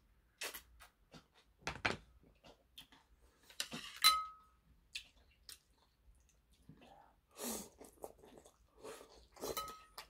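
Close-up eating sounds: scattered slurps, smacks and chewing. A ceramic dish rings with a sharp clink about four seconds in, and a lighter clink of metal chopsticks on the bowl comes near the end.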